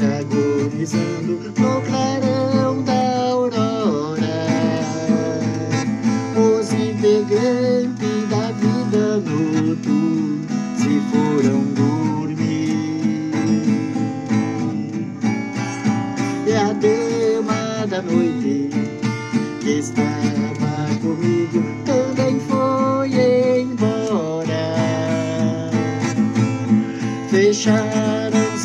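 Acoustic guitar strummed in a steady rhythm, accompanying a man singing a slow country ballad with sliding notes.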